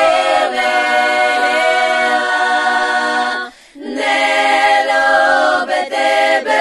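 A cappella group of voices singing in harmony with long held notes, breaking off briefly about three and a half seconds in before the voices come back.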